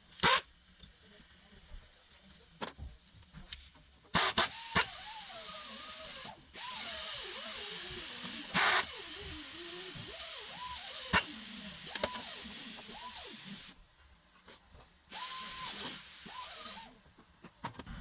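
A small power tool running in several bursts, its pitch rising and falling with speed, among sharp clicks and knocks of tools being handled.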